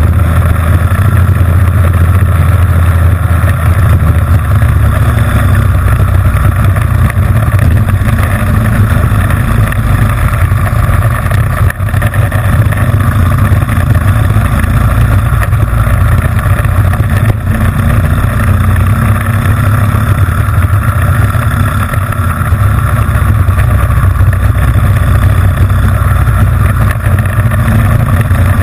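Racing kart's Honda GX160 single-cylinder four-stroke engine running hard at race speed, heard onboard. The level holds steady, with a brief dip about twelve seconds in.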